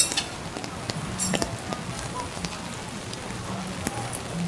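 Rain falling on a city street: a steady hiss with scattered sharp drip ticks.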